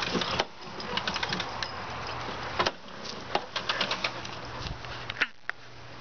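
Lawnmower running with a steady low hum, overlaid with frequent sharp clicks and rattles; the sound briefly drops away about half a second in and again about five seconds in.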